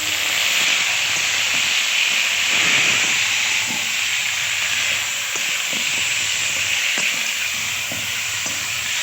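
Onions and garam masala sizzling in hot oil in a cooking pan, with a steady loud hiss and light scraping as they are stirred.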